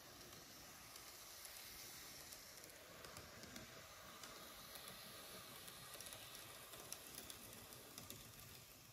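Faint whir of a Micro Ace N-scale model railcar running along the track, with light irregular clicking from its wheels on the rails. It grows a little louder midway, then eases off as the train moves away.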